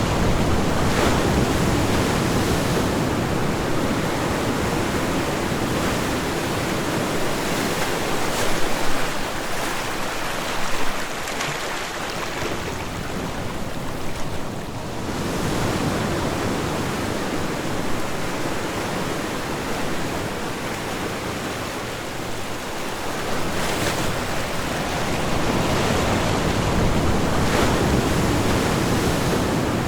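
Ocean surf: waves washing onto a shore as a steady rushing noise that swells and eases, dipping briefly about halfway through.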